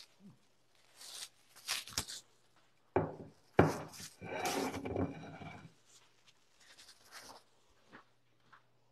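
Plastic cling wrap crinkling and rustling as it is peeled off a glass deviled-egg platter, in several bursts: about a second in, around three seconds, and longest from about four to nearly six seconds.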